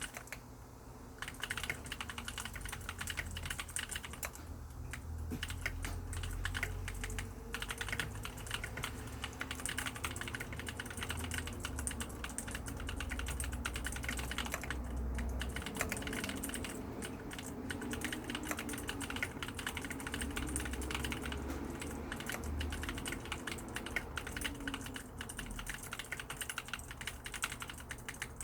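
Mechanical keyboard with lubricated clicky blue switches being typed on steadily and fast, a dense stream of keystroke clicks.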